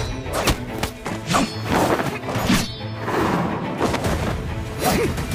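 Fight-scene sound effects, a series of sharp hits and swishes of a sword-and-martial-arts clash, laid over a dramatic music score.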